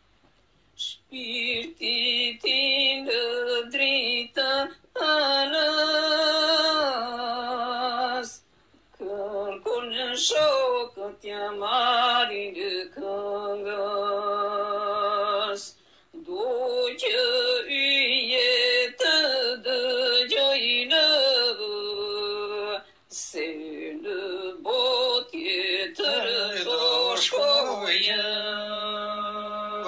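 A solo voice singing a slow song in Albanian, in phrases of a few seconds with long held notes and short breaks between them.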